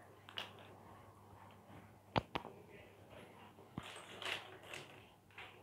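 Quiet room with a few faint clicks, two sharp ones close together about two seconds in, and soft rustling near the end.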